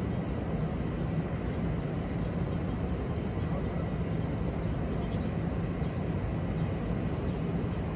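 Steady low rumble and hiss of city background noise, with no separate events standing out.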